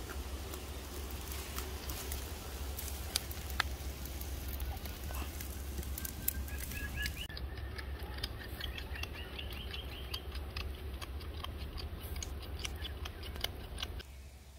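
Fish grilling over wood embers, with a steady run of small crackles and ticks over a low hum. Faint rising chirps come and go in the middle.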